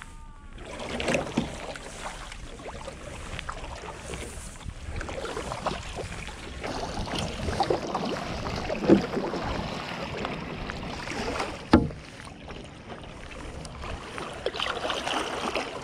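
Water splashing and rushing along the hull of a slalom canoe under steady single-blade paddle strokes on flat water, with two sharper splashes or knocks in the second half.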